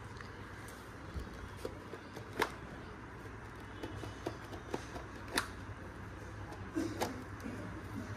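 Sharp clicks and light rustling of a small cardboard parcel being handled and opened by hand, the clearest clicks about two and a half, five and a half and seven seconds in, over a steady low hum.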